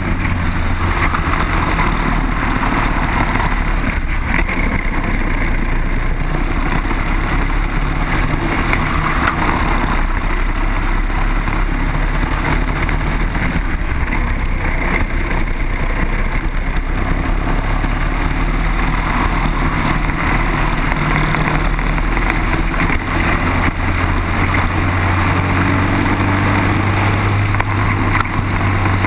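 Briggs & Stratton four-stroke kart engine at race pace, recorded onboard. Its pitch stays high along the straights at the start and end and dips and climbs again through the corners in between.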